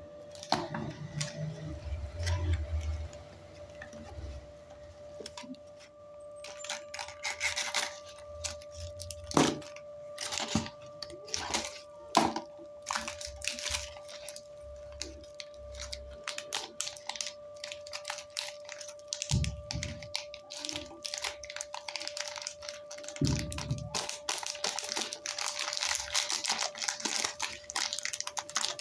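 Packaging being torn open and crinkled by hand during a gift box unboxing, a long run of short rustles and crackles with a couple of low thumps, over a steady faint tone.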